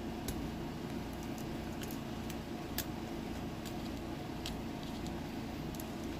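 Irregular small metal clicks and scrapes from a steel pick working at the retaining clips of a Winkhaus profile lock cylinder, over a steady low background hum.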